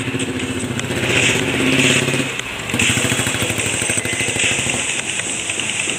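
Royal Enfield Classic 350's single-cylinder engine running, a steady pulsing note that gets louder about two seconds in and briefly eases a moment later.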